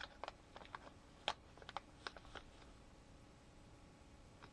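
Faint scattered clicks and taps of small fishing lures and their plastic packaging being handled, thinning out about halfway through.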